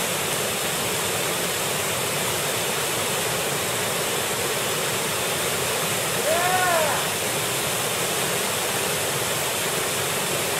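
Steady rush of a waterfall pouring into a river pool. About six seconds in, one short call rises and falls in pitch over the water noise, most like a brief shout.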